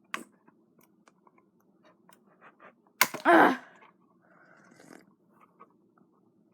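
A knife prying at the plastic shell of a Razer DeathAdder computer mouse, with small scattered clicks and scrapes. About three seconds in comes a sharp click, followed at once by a short strained grunt of effort.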